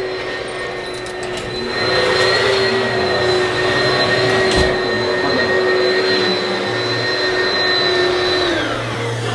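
Electric fan-type motor, like a vacuum cleaner or blower, running with a steady whine over a rush of air. It gets louder about two seconds in, and near the end its whine falls in pitch and dies away as the motor winds down.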